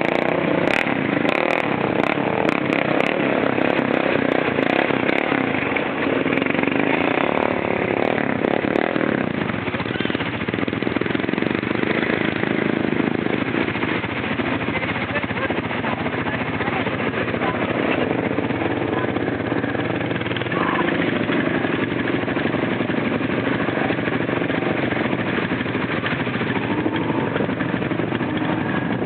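Honda Foreman 450 ATV's single-cylinder engine running steadily while riding through mud holes, with a few light clicks in the first several seconds.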